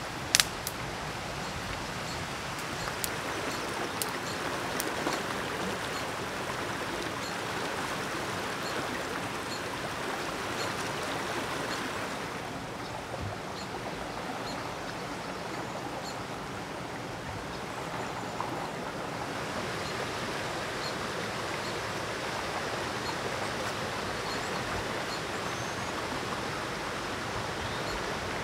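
Fast-flowing river rushing steadily over rocks, its sound duller for several seconds in the middle. A sharp snap just after the start and a few lighter ticks from dry twigs being handled and arranged for a fire.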